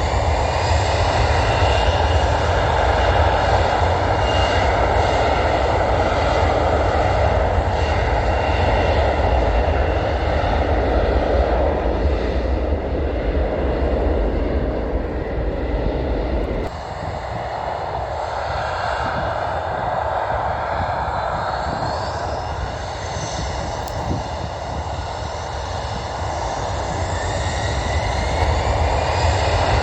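Jet aircraft engines at takeoff power, a loud steady rush with faint whining tones. The deep rumble drops away abruptly a little past halfway, and the sound builds again near the end with rising whines.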